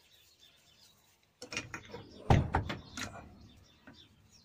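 Small metal lathe parts being handled and fitted by hand: a short run of metallic clicks and knocks starting about a second and a half in, the loudest clunk a little past two seconds.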